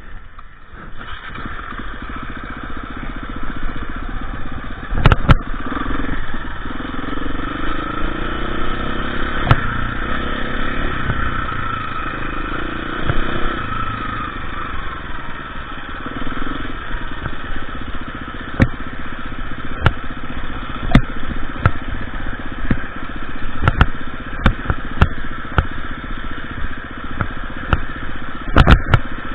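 Off-road motorcycle engine running at idle, its revs rising and falling for several seconds around the middle. Scattered sharp knocks sound over it.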